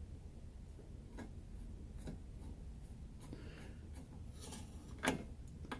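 Scattered light clicks and scrapes of small stove parts being handled as a plate is screwed back onto a Coleman 502 camp stove, with one sharper click about five seconds in.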